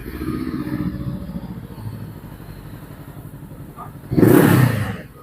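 Voge 525 DSX's parallel-twin engine with an aftermarket exhaust idling with an even pulse, then a single short throttle blip about four seconds in that rises sharply and drops back.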